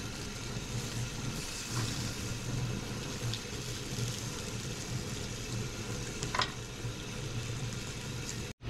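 Fish sizzling on an outdoor grill, a steady crackling hiss, with wind rumbling on the microphone. A sharp tick sounds about six seconds in, and the sound drops out for an instant near the end.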